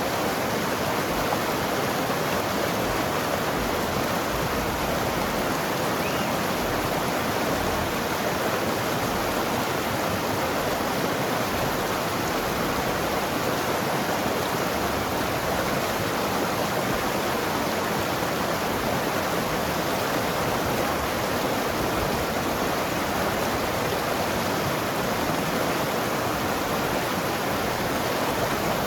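Mountain river flowing and gurgling over rocks: a steady, unbroken rush of water.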